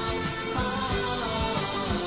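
Background music with a steady beat and sustained melodic lines, no singing in this stretch.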